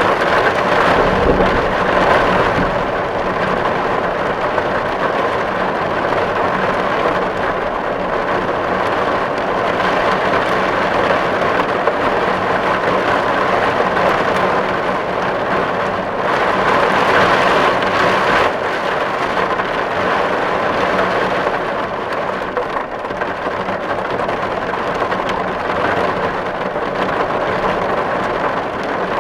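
Steady heavy rain falling on a metal tin roof, swelling a little louder near the start and again about halfway through, with a brief low rumble about a second in.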